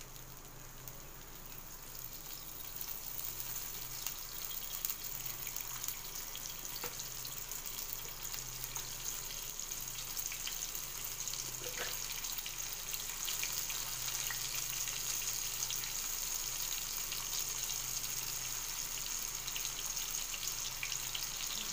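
Spice-coated fish pieces shallow-frying in oil on a cast-iron tawa: a steady sizzle full of small crackles and pops, which grows louder over the first few seconds and then holds.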